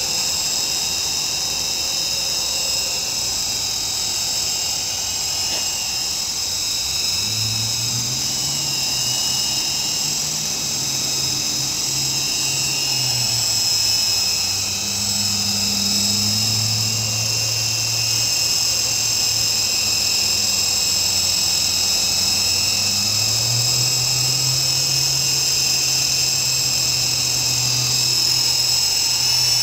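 Fixed-pitch RC helicopter in flight on glue-repaired rotor blades: a steady high motor whine, with a lower rotor hum that rises and falls several times as the throttle changes.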